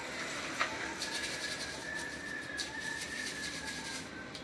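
A brush scrubbing a Honda Livo carburetor body in a basin of petrol, with light scratching and liquid sloshing. A faint steady high-pitched tone is heard from about a second in until near the end.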